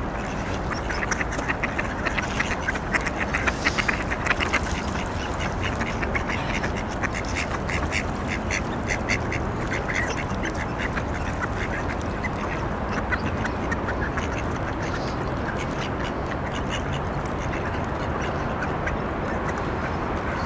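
A flock of mallards quacking: many short calls in quick succession, busiest in the first few seconds and thinning out after about halfway, over a steady low background noise.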